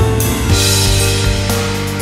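Background music with drums and a steady beat over sustained bass notes.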